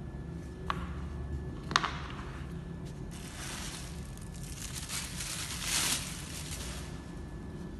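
Two light clicks, then about four seconds of rustling and crinkling, as of plastic packaging and silicone kitchen utensils being handled, over a steady low hum.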